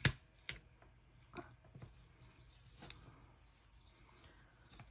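Paper pieces being handled on a craft table: a few light, sharp taps and rustles of cardstock being lifted and set down, the first the loudest.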